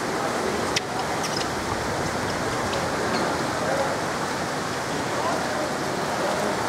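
Indoor swimming pool hall ambience: a steady wash of water noise echoing in the hall, with faint distant voices and a few small clicks.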